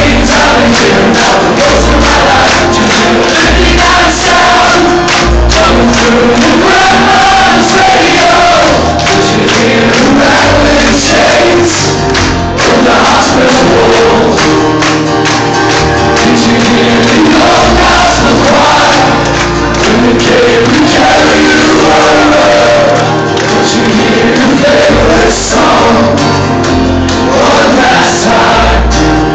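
Live acoustic band playing: strummed acoustic guitars and an upright double bass under several male voices singing together, with crowd voices joining in.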